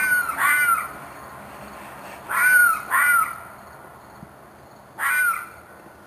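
An unidentified animal giving short, screeching cries, five in all: two pairs and then a single one near the end, each bending in pitch. The recordist took it for a fox or coyote in distress.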